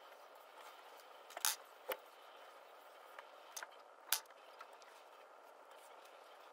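Hands stitching a leather wallet: a few short sharp clicks and rustles as the thread is pulled and the leather handled, the loudest about one and a half seconds and four seconds in, over a faint steady hiss.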